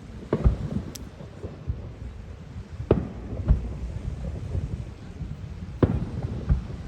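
Fireworks shells bursting at a distance: about five booms in seven seconds, the strongest about three seconds in and near six seconds, over a steady low rumble.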